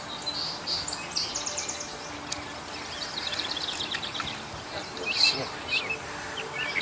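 Small birds chirping and trilling over steady outdoor background noise, with quick high trills about a second in and again about three seconds in, and short falling chirps near the end.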